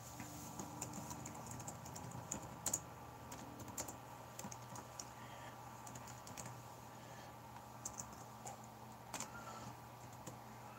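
Faint typing on a keyboard: irregular, scattered key clicks.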